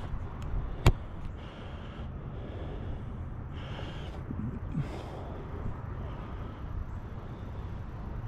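Wind rumbling steadily on the microphone outdoors, with one sharp click about a second in and a few faint rustles.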